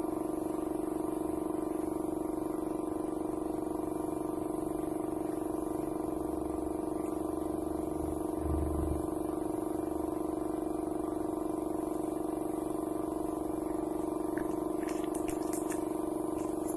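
Air compressor running steadily with a constant pitched hum, supplying a spray gun for repainting furniture. There is a low thump about halfway and a few short high hisses near the end.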